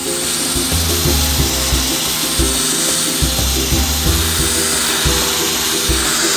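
Background music with a steady beat, with the steady hiss of an electric pressure washer's jet spraying water beneath it.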